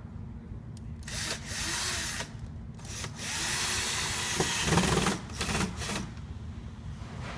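Power drill driving screws during furniture assembly, run in two bursts: a short one about a second in and a longer one of about three seconds.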